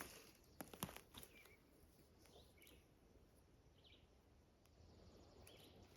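Near silence: a few faint clicks in the first second, then a handful of faint short bird chirps.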